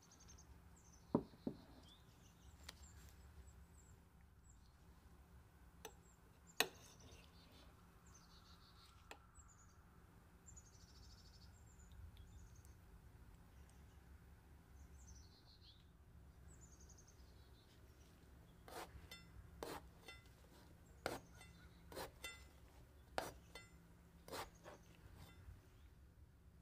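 Near silence with faint bird chirps: short high phrases that drop in pitch, repeating every couple of seconds. A few sharp knocks or clinks cut in, two loud ones in the first seconds and a quick run of them in the last third.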